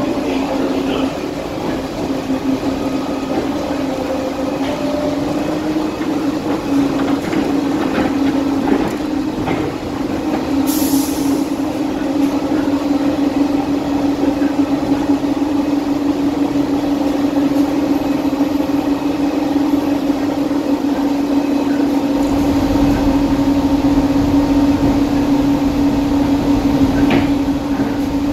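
Interior of a Skylink automated people mover (Bombardier Innovia APM 200, rubber-tyred) running along its concrete guideway. A steady motor whine rises slightly in pitch about six seconds in, over the running rumble of the car. A brief hiss comes about eleven seconds in, and the low rumble grows stronger about twenty-two seconds in.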